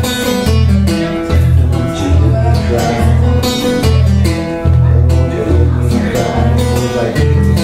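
Live acoustic blues: acoustic guitars drive a repetitive one-chord riff in a steady pulsing rhythm, while a harmonica plays long held notes over it.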